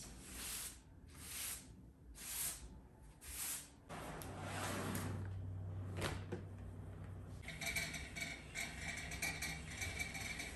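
Four short hisses about a second apart, then a bagless upright vacuum cleaner running over a thick shag rug: a low motor hum starts about four seconds in, and a higher whine joins it a few seconds later.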